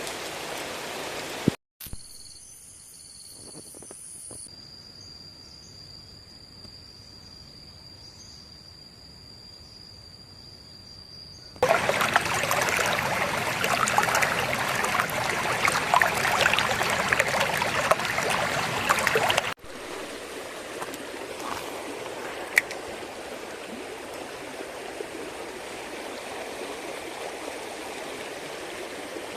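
Rushing water of a small mountain stream, heard in separate stretches split by abrupt cuts. A quieter middle stretch carries a steady high-pitched tone. A much louder stretch of rushing water or heavy rain follows and stops suddenly, and then the steady flow of the stream returns.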